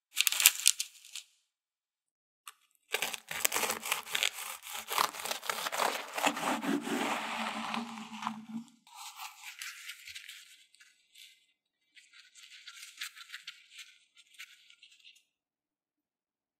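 Crisp craquelin crust of a baked choux puff crackling as fingers grab it off baking parchment. Then a serrated knife saws through the crunchy shell on a wooden cutting board for several seconds, followed by softer crackling as the cut halves are handled.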